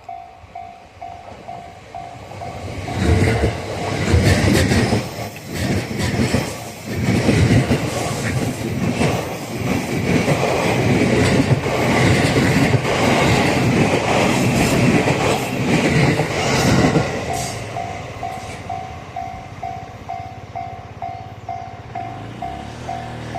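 JR East E235 series electric train passing over a level crossing, its wheels clattering over the rail joints for about fourteen seconds. A Japanese level-crossing bell dings rapidly and evenly before the train arrives and again after it has passed.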